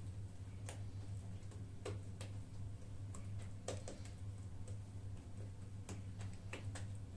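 Scattered light clicks and taps, unevenly spaced, as fingers press and shape a small piece of yeast dough on a silicone baking mat, over a steady low hum.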